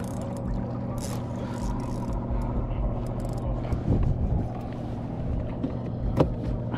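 Boat motor running steadily in a low, even hum, with a few knocks about four seconds in and a sharp click near the end.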